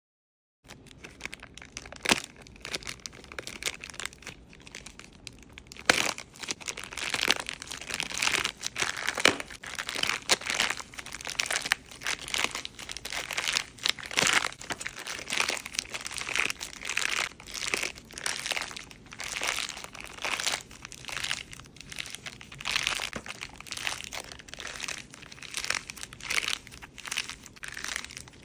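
A handmade taba squishy, a tape-covered squishy toy shaped like strawberry triangle cakes, squeezed over and over by hand. It crinkles and crackles with each squeeze, at about one squeeze a second, starting about half a second in.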